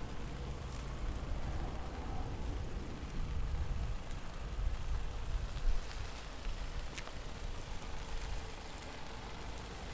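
Volkswagen Scirocco creeping along the kerb at walking pace: a steady low engine and tyre rumble with hiss. A single sharp click comes about seven seconds in.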